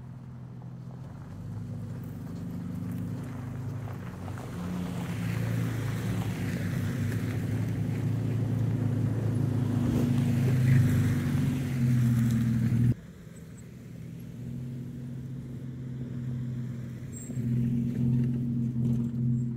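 A vehicle engine running as it drives, building in loudness for about thirteen seconds, then cutting abruptly to a quieter stretch of the same engine sound.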